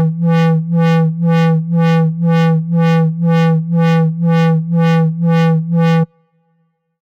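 Electronic soundtrack: a low synthesized tone pulsing about twice a second, each pulse with a bright, buzzy top, until it cuts off suddenly about six seconds in.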